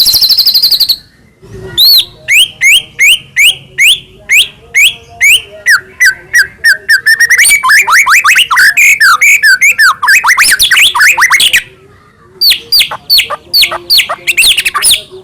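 White-rumped shama singing: a fast rattling trill, then long runs of quick downslurred whistles that crowd together and speed up midway, a short break about twelve seconds in, and more whistles after it.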